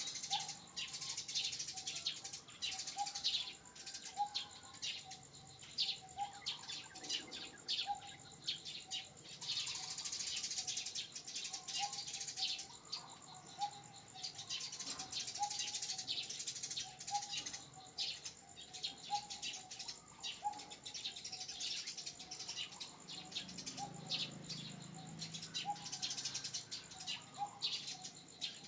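Wild birds chirping, with one short call repeated about once a second throughout, over a thin steady high-pitched tone.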